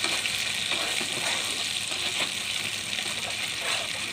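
Ground poppy seed and almond paste sizzling in hot ghee in a pan as it is roasted and stirred, a steady frying hiss with light scrapes of the spoon against the pan.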